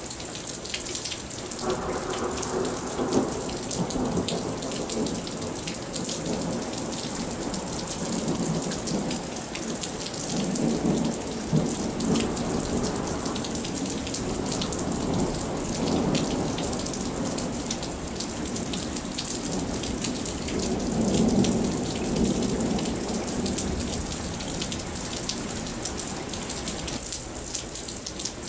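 Steady rain with a constant hiss and fine clicks of drops hitting a nearby surface. Low rolling thunder swells up and fades four times, loudest about 21 seconds in.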